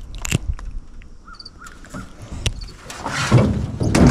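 Close-up handling of a freshly caught bluegill and a worm-baited hook right at the microphone: scattered clicks and rustles, with a louder rough rustling stretch about three seconds in. A bird calls in the background.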